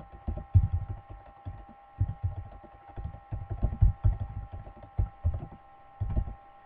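Typing on a computer keyboard, heard as an irregular run of dull low thumps with short pauses, over a faint steady electrical whine.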